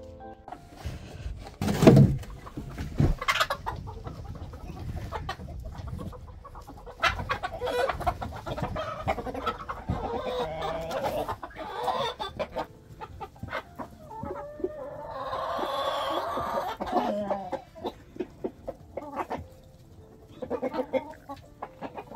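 A flock of hens and a rooster clucking, in bouts of short calls, with one long drawn-out call a little past the middle that drops in pitch at its end. A sharp thump about two seconds in is the loudest sound.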